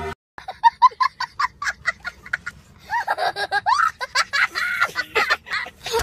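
A young child laughing hard: a quick run of short breathy laughs, then higher laughter that rises and falls in pitch.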